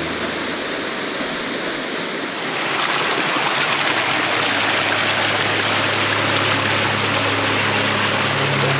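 Rushing water, a steady even wash that gets louder and fuller about two and a half seconds in. Music comes back in faintly near the end.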